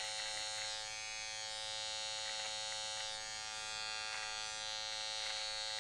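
Electric hair trimmer buzzing steadily as its blade is run over the cheek to clear out beard hair below the cheek line.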